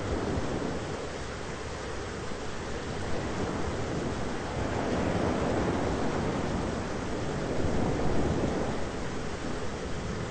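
Thunderstorm ambience: a steady rush of rain and wind noise that swells louder around the middle and again a little later, with no sharp cracks.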